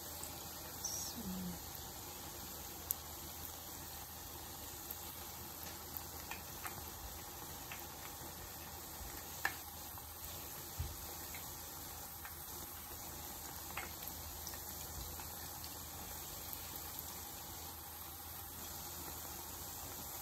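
Jalebi deep-frying in hot oil and ghee: a steady sizzle of bubbling oil, with a few short sharp clicks as tongs turn the spirals in the pan.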